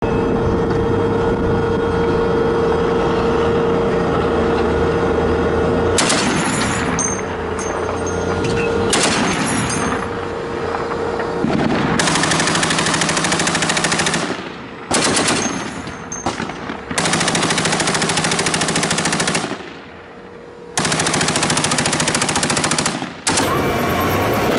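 Tank engine running with a steady hum and a held tone. About six seconds in, long bursts of heavy machine-gun fire begin and repeat, each one to two and a half seconds long with short pauses between them.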